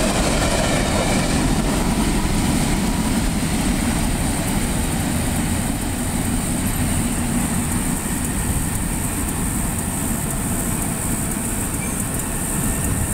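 Empty grain train rolling past, its last covered hopper going by at the start, then a steady rumble of wheels on rail that eases slightly as the train moves away.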